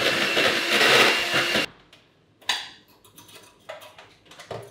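Kitchen blender running, then switched off suddenly about a second and a half in. After it come a few light knocks and clatters of kitchen things on the worktop.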